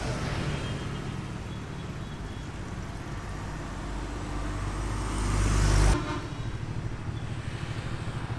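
Road traffic: a passing vehicle's engine and tyre noise grows louder over several seconds, then cuts off suddenly about six seconds in.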